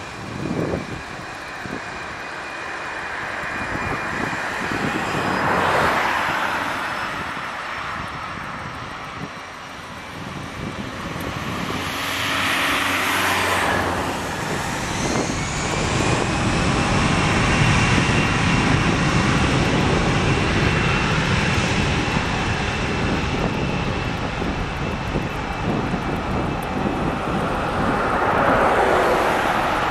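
Twin jet engines of an Aerosvit Airbus airliner spooling up for the takeoff roll. A whine rises about halfway through and then holds, and the engine noise grows louder from there.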